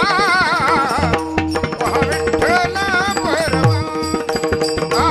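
Devotional bhajan: a singer holding long notes with wavering ornaments over hand-drum strokes and a steady drone.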